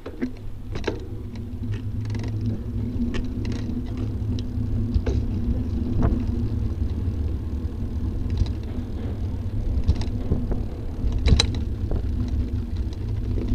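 Steady low wind and road noise on a bicycle-mounted Cycliq camera as the bike rides off, building up over the first couple of seconds, with scattered clicks and knocks as the mount rattles over bumps.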